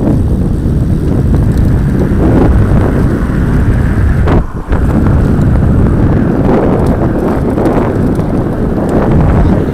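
Wind buffeting the microphone of a camera on a moving bicycle, a loud steady rumble that drops away sharply for a moment about four and a half seconds in.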